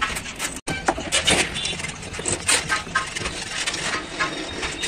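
Metal tools clinking and knocking against a truck alternator's parts during hand repair: a string of sharp clicks and taps, some with a short metallic ring.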